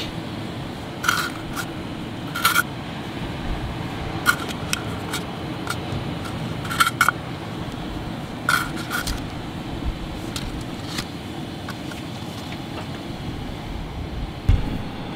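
Steady low wind rumble on the microphone, with scattered sharp clicks and crackles as a cardboard can of refrigerated cinnamon-roll dough is handled and the rolls are set into a silicone pan. There is one dull thump near the end.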